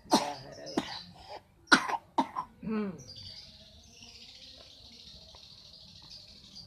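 A run of about five harsh coughs over the first three seconds, from someone sick with a cough. After that comes a steady high-pitched insect chirring.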